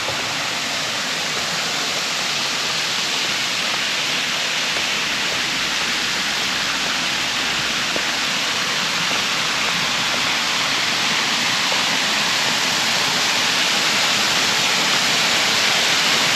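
Water pouring over a small dam spillway into the pool below, a steady close rush of falling water that grows slightly louder near the end.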